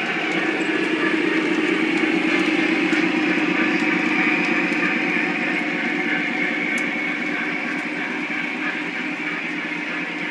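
Lionel O scale model train running along the track: a steady rolling rumble of wheels and motors that grows louder about a second in as the train passes close, then slowly eases off.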